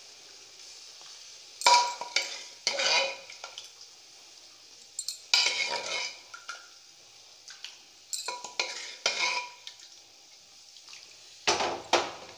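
Metal spoon scraping and clinking against aluminium cookware in four or five short bouts, as dal pitthi pieces are scooped from a pressure cooker and slid into a kadai of tadka. A steel ladle stirs the kadai near the end.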